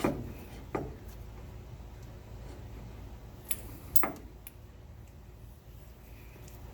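A few scattered light metallic clicks and knocks from hand tools and shock-mount bolt hardware being handled, the loudest about four seconds in, over a low steady hum.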